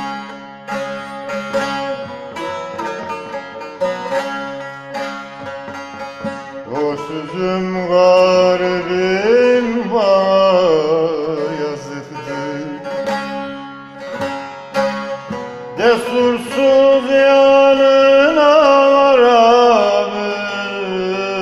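Bağlama (saz) plucked and strummed, playing a quick melody. A man's voice sings over it in two long phrases, about a third of the way in and again near the end, with sliding, wavering held notes.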